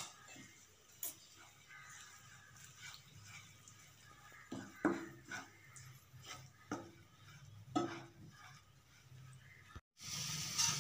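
Wooden spatula faintly scraping and knocking against a frying pan now and then as ginger-garlic paste and green chilli are stirred in oil. Near the end a steady sizzle of frying comes up suddenly.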